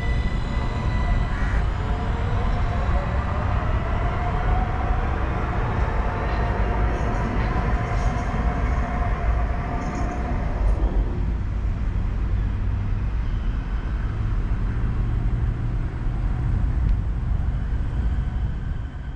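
CRRC Zhuzhou light rail vehicle running past on test, its traction drive whining in a tone that rises in pitch and then holds before fading out about eleven seconds in. A steady low rumble runs throughout.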